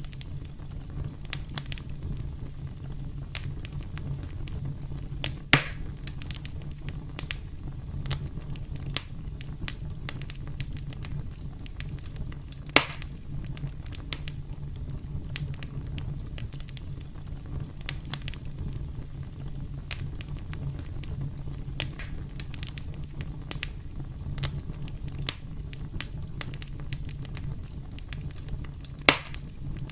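Campfire crackling: a steady low rumble of burning wood under many small crackles. Three louder pops stand out, about five and a half seconds in, about thirteen seconds in, and near the end.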